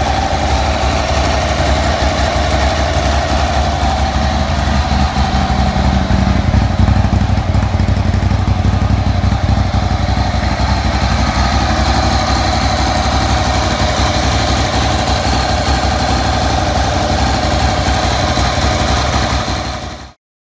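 Ducati 848 superbike's L-twin engine running steadily at idle, with the abnormal mechanical noise that the owner traced to wrongly preloaded, spalled main bearings. The sound cuts off suddenly near the end.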